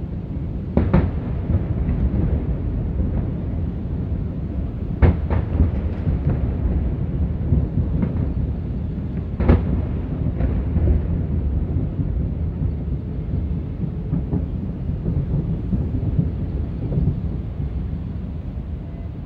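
Fireworks exploding: a continuous low rumble with sharp bangs, two about a second in, a few between five and six seconds, and more near eight and nine and a half seconds, after which only the rumble goes on.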